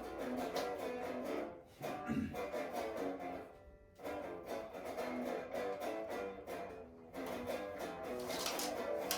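A guitar being played, a run of plucked notes with two short breaks, the first a little under two seconds in and the second around three and a half seconds in.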